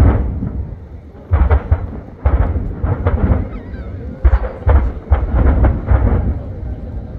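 Aerial firework shells bursting in quick succession: a string of deep booms, a dozen or so, bunched in clusters.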